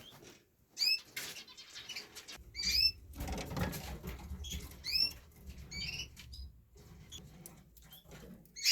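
Canaries calling: short, high chirps scattered throughout, about a dozen, with a soft rustle about three seconds in.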